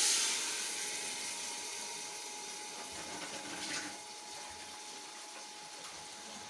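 Water poured into a pressure cooker of browned beef and spices on a gas flame: a loud hiss as it hits the hot pan, slowly dying down to a steady hiss, with a second short burst a little before four seconds in.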